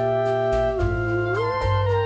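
Instrumental backing-track music in a break between sung lines: a held, gliding lead melody over sustained chords and a bass line.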